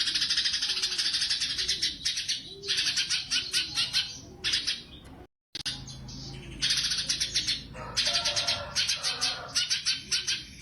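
Cucak cungkok, a bulbul, singing energetically in long rapid-fire bursts of fast repeated high notes, broken by short pauses, with a lower warbled phrase late on. The sound cuts out completely for a moment about halfway.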